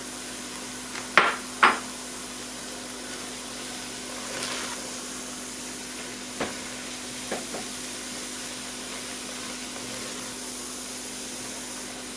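Ground turkey meat sauce sizzling steadily in a pan on the stove while a utensil stirs it. Two sharp knocks against the pan come about a second in, and a few lighter clinks follow later.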